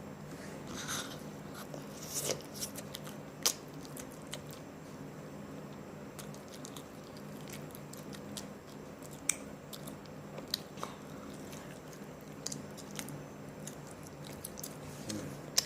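Close-up chewing and biting into hot and spicy chicken, with wet mouth smacks and scattered sharp crunches and clicks, a few louder than the rest. A faint steady hum runs underneath.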